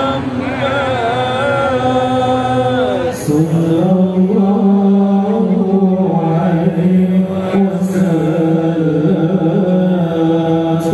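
Sholawat, Arabic praise of the Prophet Muhammad, chanted by a large crowd in long, drawn-out notes. A higher, wavering line carries the first three seconds, then a lower, held line takes over from about three seconds in.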